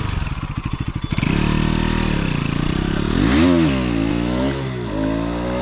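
Bajaj Pulsar RS200's single-cylinder engine ticking over with a fast even beat, then revved and pulling away about a second in. Its pitch climbs, wavers and drops as the throttle is worked and gears change.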